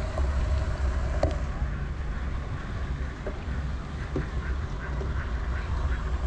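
Steady wind rumble on the microphone of a moving bicycle, with ducks quacking at the pond: a run of short quacks in the second half.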